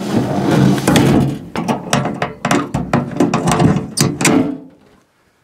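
Sheet-metal hood panels of a T-25 tractor being shut and latched: a rapid run of metallic clicks, knocks and rattles over a low steady hum, stopping abruptly about four and a half seconds in.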